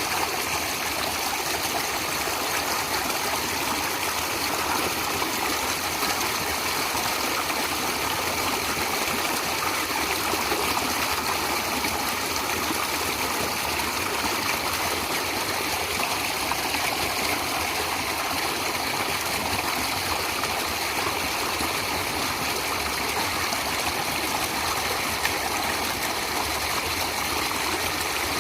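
Stream water flowing steadily, an even, unbroken rush and babble.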